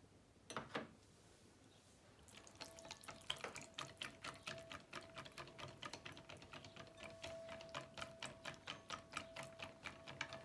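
Coated wire whisk beating yogurt in a glass bowl: rapid, regular strokes begin about two seconds in, after a couple of soft knocks, with a faint steady tone underneath.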